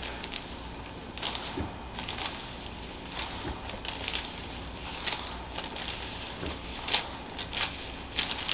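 Rustling and crinkling with a scatter of short, irregular crackles and clicks, the loudest about seven seconds in.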